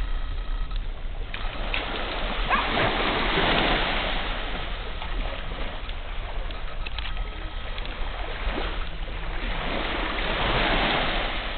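Small sea waves washing onto a sandy shore, swelling twice, with wind rumbling on the microphone.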